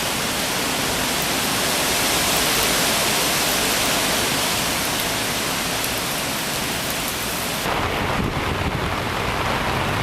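Heavy, torrential rain falling steadily, a dense hiss. About three-quarters of the way through it changes abruptly to a duller rushing sound.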